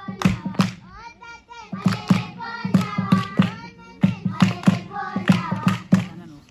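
Group of people singing to quick, steady hand clapping. The clapping breaks off briefly about a second in and again near four seconds while a voice carries the tune, and fades near the end.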